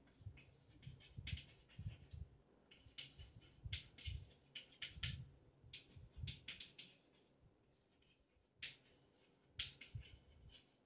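Chalk writing on a blackboard: faint, irregular short scratchy strokes and taps as letters are written, with a brief pause a little after the middle.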